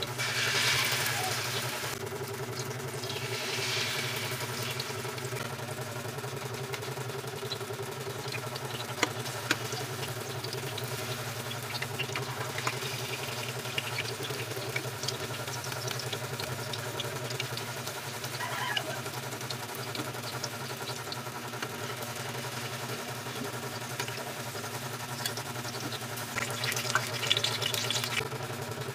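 Battered banana slices frying in hot oil in a pan, with fine crackling throughout and louder sizzling bursts about a second in, a few seconds later, and again near the end. A steady low mechanical hum runs underneath.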